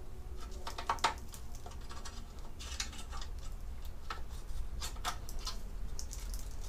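Scattered light clicks and taps of mounting brackets being handled and fitted onto a new aluminium air-conditioning condenser, with a sharper click about a second in.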